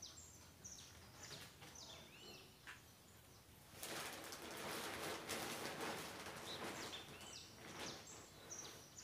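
Small birds chirping. About four seconds in, a louder crinkling rustle of a plastic tarpaulin being handled starts and goes on to near the end, with the chirps still over it.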